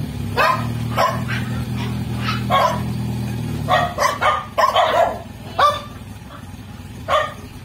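A dog barking again and again in short barks, over the low steady run of an owner-type jeep's Toyota 4K four-cylinder engine as the jeep moves slowly forward. The engine hum eases off about four seconds in while the barking goes on.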